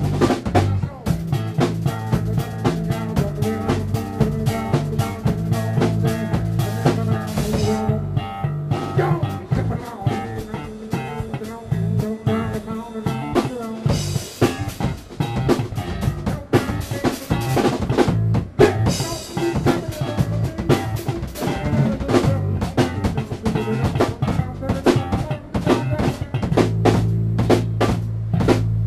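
Instrumental funk-rock jam: a drum kit plays a busy groove over a bass line. About halfway through the bass drops out and the drums carry on, and the bass comes back near the end.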